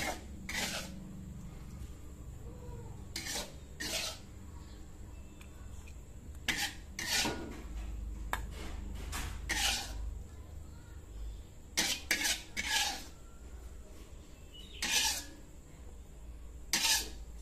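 Spatula scraping and clinking against a wok and a stainless-steel bowl as sambal is scooped from pan to bowl. The strokes come in about a dozen short, irregular bouts.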